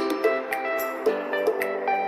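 Background music: plucked-string notes in a light, regular rhythm.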